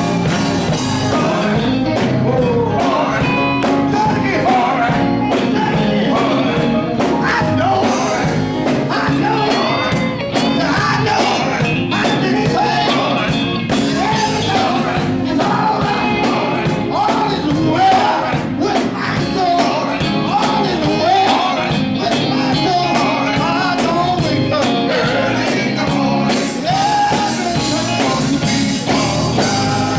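Live gospel quartet music: voices singing over a full band with drums keeping a steady beat.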